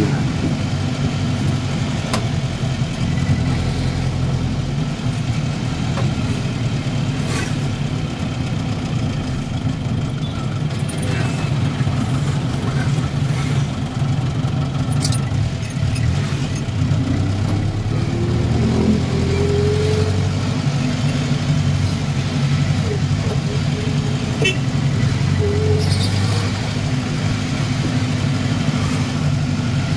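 Vehicle engine and road noise heard from inside the cab while driving, a steady low hum with a faint rising whine about halfway through.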